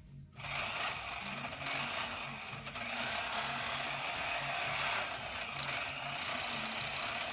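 Steady rasping hiss of a tool at work, starting just after the start, with a low, evenly repeating pulse underneath.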